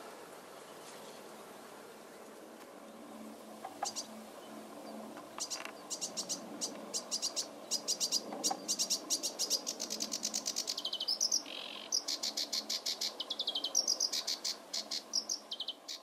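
A small songbird singing a long, fast song of rapid repeated high notes in changing phrases, starting about five seconds in, over faint steady background noise.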